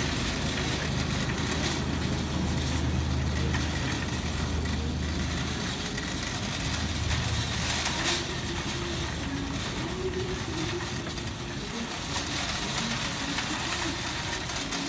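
Wire shopping cart being pushed across a smooth store floor, its wheels rolling with a steady low rumble, with a single knock about eight seconds in.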